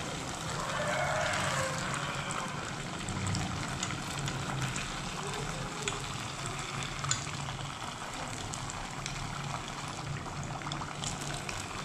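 Tapioca-filled lumpia wrappers deep-frying in a small pan of hot oil: steady sizzling and crackling, with a few sharp clicks, the most prominent about seven seconds in.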